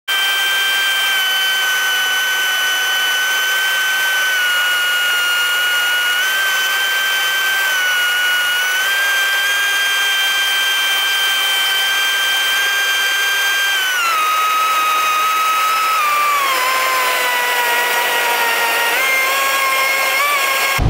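Single-engine piston airplane's engine and propeller heard from inside the cockpit: a steady, high-pitched drone. Its pitch steps down about two-thirds of the way through and slides lower as power comes back on approach, then steps up slightly near the end.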